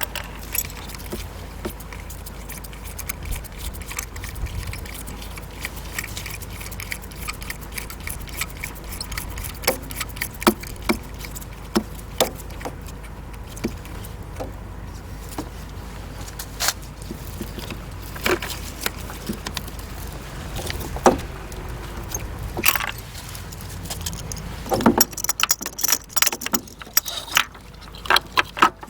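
Metal hand tools clinking and clicking in scattered, irregular taps while a car's spark plugs are changed, the clicks coming thick and fast near the end. A low steady hum runs underneath and stops about three-quarters of the way through.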